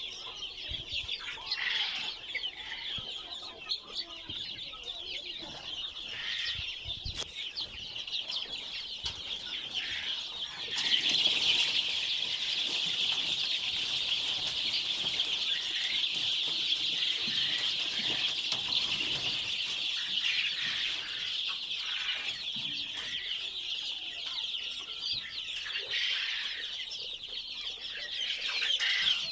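A large flock of farmed chickens, a dense continuous chorus of clucking and cheeping that grows louder about eleven seconds in.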